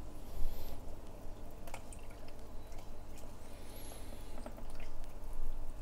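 Aquarium water pouring and dripping from a plastic tub into a bucket of water, with a short splash about half a second in and scattered drips after it.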